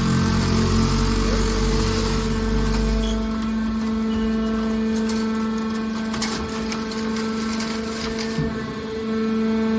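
Hydraulic scrap-metal baler running: a steady hum from its motor and pump, with a deep rumble that dies away about three and a half seconds in, then a few short knocks.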